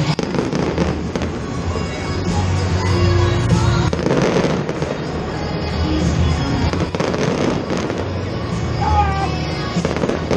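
Stadium fireworks display: a rapid, continuous series of aerial shells bursting and crackling, with music playing underneath.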